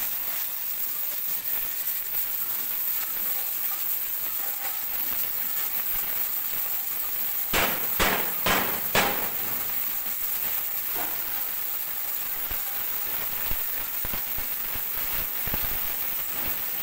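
Gas cutting torch hissing steadily as it cuts through a steel plate, with a crackle of spraying sparks. A quick run of about four sharp pops comes around the middle.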